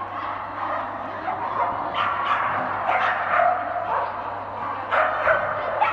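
A dog barking several times, starting about two seconds in.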